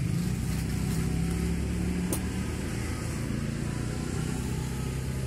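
Motor vehicle engine running near the road, a steady low rumble with a held low hum, and one short click about two seconds in.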